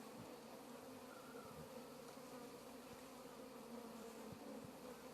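Honey bees buzzing in a faint, steady hum.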